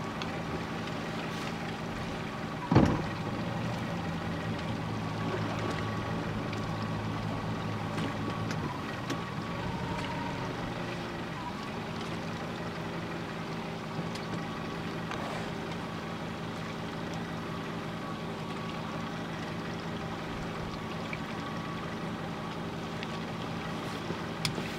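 Boat engine running steadily, a low hum that shifts slightly in pitch about ten seconds in, with a single loud knock about three seconds in.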